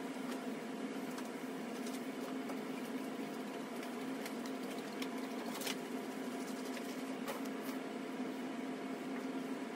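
Steady mechanical hum of a running motor, unchanging throughout, with a few brief faint scrapes of hands and a sponge rubbing on a hard plastic light-bar dome about midway.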